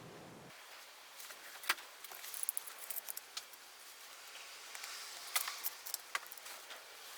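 Light metallic clinking and rattling of hand tools and small engine parts being handled during motorcycle engine disassembly, with scattered sharp clicks.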